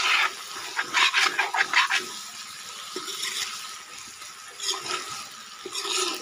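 Metal spatula stirring and scraping through chicken, potato and banana flower frying in a wok: a series of scraping strokes, several close together about a second in, over a steady sizzle.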